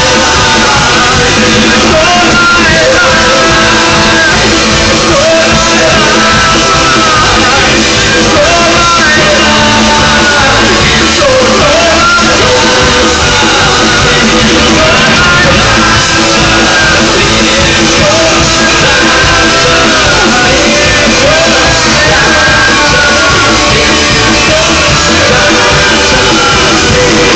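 Live band playing loud rock music in a concert hall, with vocals over the instruments.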